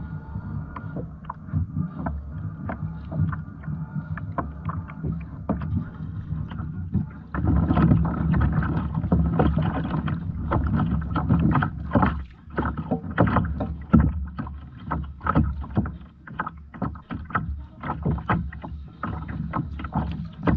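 Water sloshing and slapping against a kayak's hull, with frequent short knocks and clicks from gear and movement on board, over a steady low hum. It gets louder from about seven seconds in.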